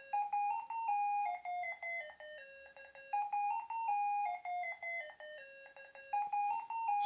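OUTWIT kids alarm clock going off, playing its electronic alarm melody: a short stepping tune of clean electronic tones that starts over about every three seconds.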